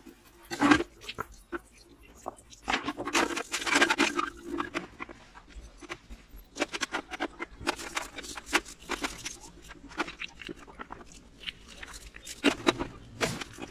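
Small engine parts being scrubbed with a brush and handled in a metal washing tray: irregular scraping strokes and light metallic clicks, busiest a few seconds in and again near the end.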